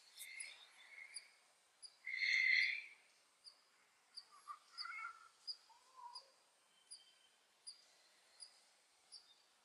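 Birds calling faintly in the surrounding trees: a short, high chirp repeats about every two-thirds of a second, with a louder, noisier call about two seconds in and a few scattered shorter calls after it.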